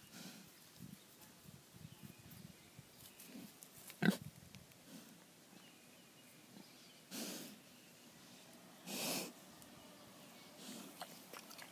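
Kunekune pig grunting softly and snuffling with its snout close by, with two short breathy huffs in the second half. A single sharp click about four seconds in is the loudest sound.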